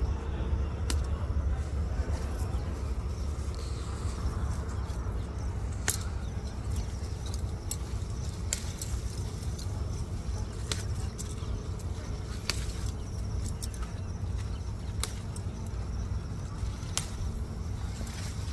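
Okra plants being handled during picking: leaves rustling and a few sharp clicks, over a steady low rumble.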